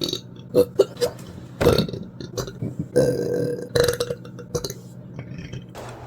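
A person belching again and again: a few short burps, then longer, drawn-out pitched belches about three and four seconds in, tailing off into smaller ones.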